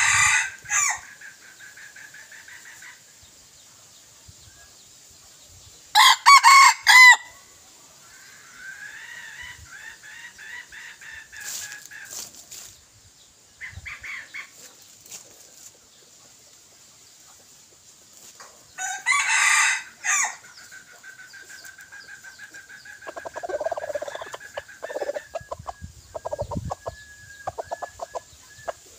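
Red junglefowl roosters kept as decoy birds crowing three times, each crow short, about a second long, with soft clucking between the crows.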